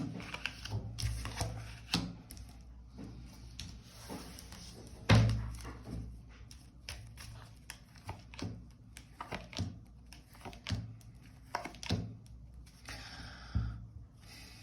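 Tarot cards being handled and laid out on a table: scattered light taps and rustles, with one louder thump about five seconds in and a short papery rustle near the end.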